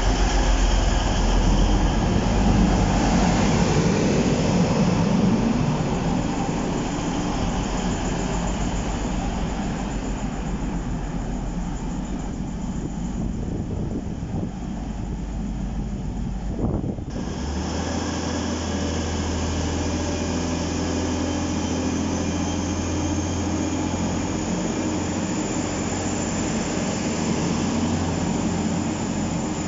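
Class 185 diesel multiple unit's underfloor diesel engines running. First comes a loud rumble as the train draws in and stands at the platform. After a cut about 17 s in, a steady low drone takes over as it pulls away, with a faint high whine slowly rising in pitch.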